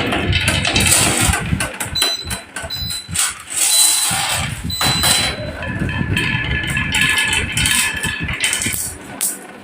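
Many marbles rolling and clattering down a wooden track: a steady rumble of rolling with a dense run of quick clicks and knocks as they hit the wood and each other.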